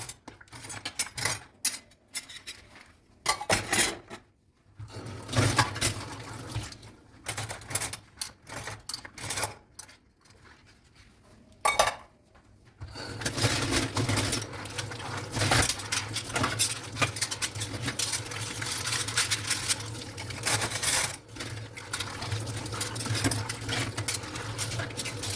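Dishes and cutlery clinking and clattering as they are washed by hand. In the second half, a steady rush of running tap water continues under the clinks.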